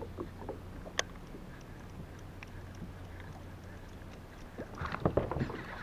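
Small knocks and clicks of a kayak and the gear aboard it on calm water: one sharp click about a second in and a cluster of louder knocks near the end.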